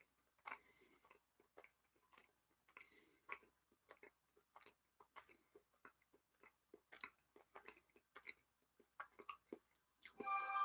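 A person chewing a mouthful of cheese, with faint, irregular mouth clicks and smacks. A louder, brief burst comes near the end.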